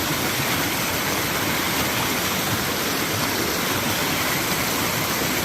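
Rain-swollen creek rushing past, a steady, even wash of running water.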